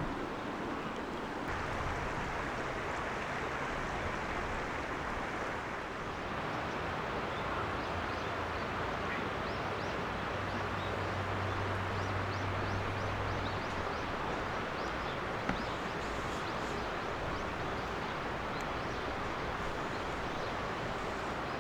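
Steady rush of a flowing river, with small birds giving many short, high, rising chirps from about a third of the way in.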